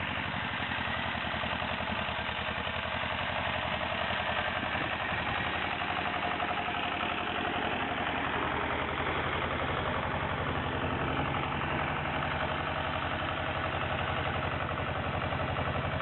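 Small farm tractor's engine running steadily with a rapid, even chugging, towing a trailer loaded with logs.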